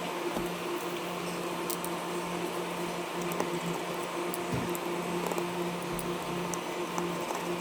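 A steady low hum with scattered faint small clicks.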